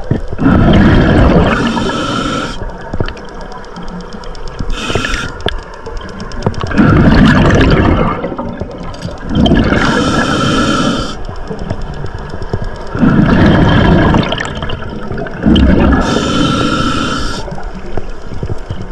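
Underwater scuba breathing through a regulator: hissing inhales and rumbling bursts of exhaled bubbles, repeating every few seconds.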